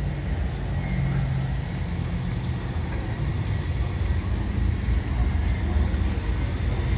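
Steady low rumble of motor vehicles and road traffic.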